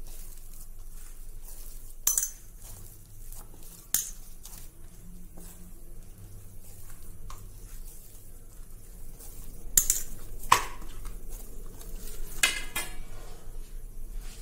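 Dough being kneaded by hand in a stainless steel plate: uneven pressing and handling noise, with a few sharp clicks and knocks of metal on steel, and a steady low hum underneath.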